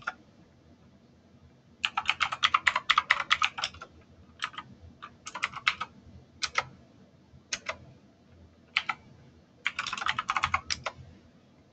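Typing on a computer keyboard: a quick run of keystrokes about two seconds in, a few separate taps, then another quick run near the end as a terminal command is entered.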